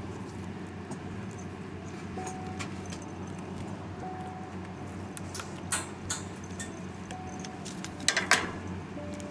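Light clicks and rattles at a wire pet cage as cats move and play against it, with a louder knock a little before six seconds in and a short clatter of knocks about eight seconds in, over a steady low hum.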